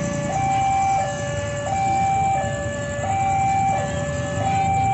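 Electronic two-tone level-crossing alarm sounding, a higher and a lower tone alternating about every 0.7 seconds, warning that a train is approaching.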